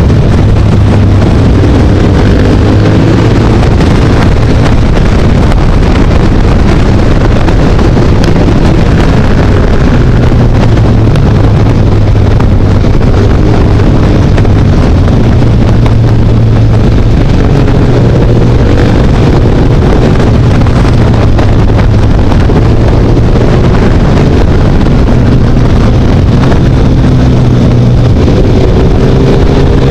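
Motorcycle engine running steadily under way, its revs rising and falling a little through the bends, with heavy wind buffeting the microphone.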